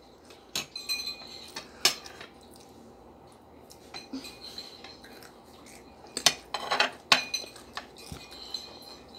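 Metal forks and spoons clinking and scraping against plates during a meal: a scatter of separate sharp clinks, with the loudest about two seconds in and a cluster of several between six and seven seconds in.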